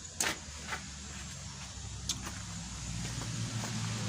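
A road vehicle's engine humming and growing louder as it approaches in the second half, with three sharp clicks in the first half.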